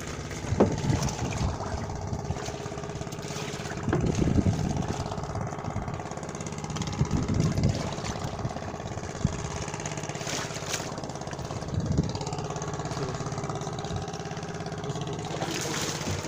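A fishing boat's engine running steadily at idle, with a few short thumps.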